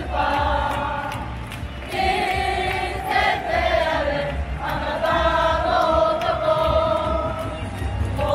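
Football supporters singing a chant in unison, a large crowd holding a melody in long notes with a regular beat underneath.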